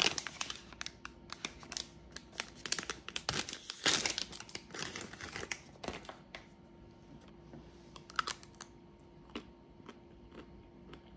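Crinkling and crackling of packaging being handled, a dense run of sharp crackles for about the first six seconds, then only scattered clicks.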